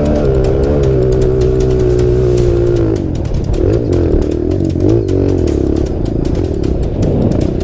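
Trail motorcycle engine running at steady revs, then revving up and down repeatedly from about three seconds in as the throttle is worked.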